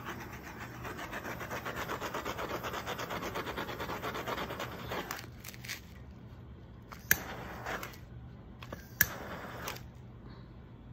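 Heat gun blowing over wet acrylic pour paint to pop air bubbles: a steady rushing air noise with a fine flutter that stops about five seconds in. Two sharp clicks follow a couple of seconds apart.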